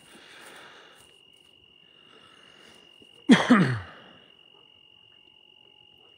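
Steady high-pitched trill of night insects. About three seconds in, a short, loud, voice-like sound drops sharply in pitch and lasts under a second.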